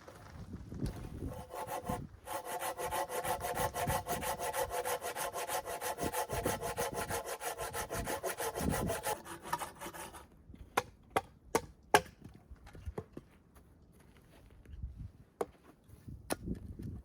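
Hand saw cutting through firewood in fast, steady strokes, stopping about ten seconds in. Then a few scattered sharp knocks and snaps of wood.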